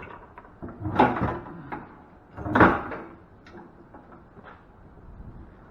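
Metal parts being handled during teardown: two clunks, about a second in and again about a second and a half later, with a few light clicks.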